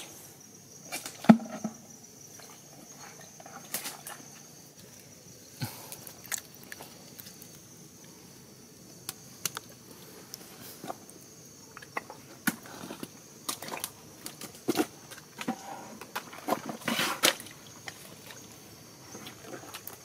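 Footsteps of rubber boots through wet mangrove mud, with irregular sharp clicks and knocks, the loudest about a second in, over a steady high insect buzz.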